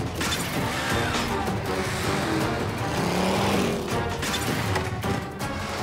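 Cartoon action music over a chase, mixed with sound effects of buggy engines and crashing impacts.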